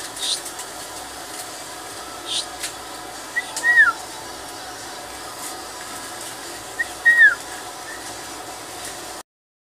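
Two short falling whistled calls, about three and a half seconds apart, over a steady hiss, with a few faint crackles; the sound cuts off suddenly near the end.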